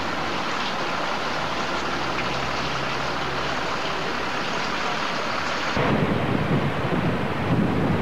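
A steady hiss with a faint low hum, then about six seconds in a sudden change to the rushing of a waterfall, with wind buffeting the microphone.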